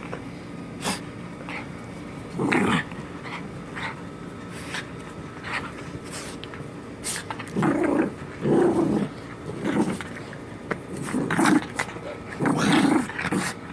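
A dog growling in short bouts during rough play, with scattered clicks between the growls.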